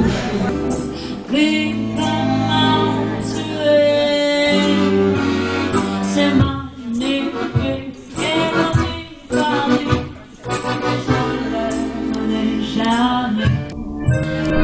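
A woman singing with an accordion accompanying her.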